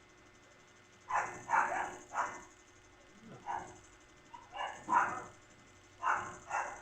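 A dog barking in short runs of two or three barks, starting about a second in and coming back several times.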